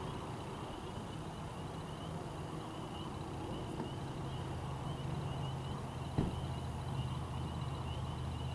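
A steady low mechanical hum that grows a little stronger about a second in and again about four seconds in, with a faint high wavering tone above it and a single sharp click a little past six seconds.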